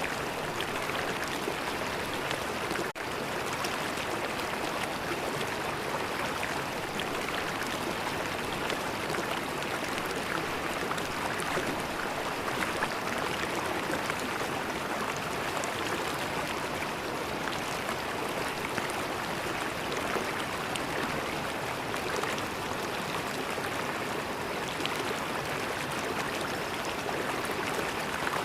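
River water flowing steadily over stones, an even rush of water with no let-up, broken only by a momentary dropout about three seconds in.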